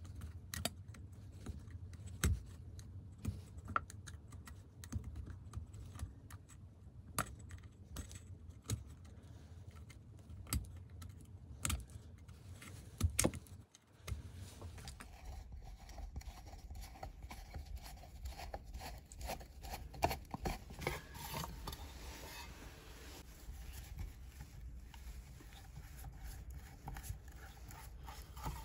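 Cranked offset screwdriver working a rusted Phillips screw on a steel base plate: irregular small metallic clicks and scrapes as the tip slips and bites in the screw head. Partway through the clicks give way to steadier scraping.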